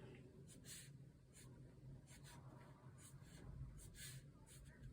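Paintbrush loaded with watercolour being stroked across paper: faint, short scratchy swishes, about two a second, over a faint steady low hum.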